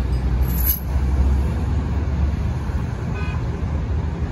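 Steady low rumble of passing highway traffic, with a brief high-pitched tone about three seconds in.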